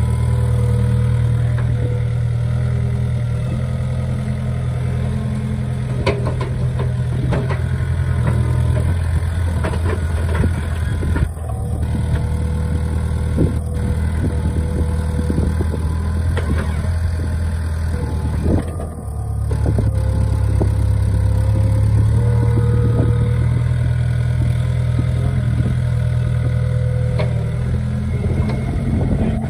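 Mini excavator's diesel engine running hard under hydraulic load as the machine works its boom and bucket to pull itself out of deep mud. The engine note shifts twice, dipping briefly about two-thirds of the way through, with scattered sharp knocks and clanks in the middle stretch.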